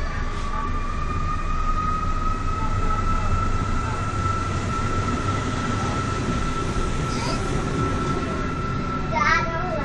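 Passenger train running, heard from inside the carriage through an open window: a steady rumble of wheels on track with a single high whine that slowly rises in pitch as the train gathers speed. A short wavering sound comes near the end.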